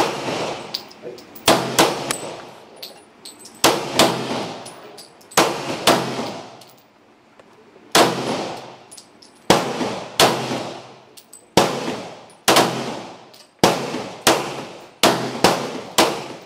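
Pistol shots fired one at a time, about fourteen, each a sharp crack with a ringing tail, at an uneven pace with some pairs in quick succession.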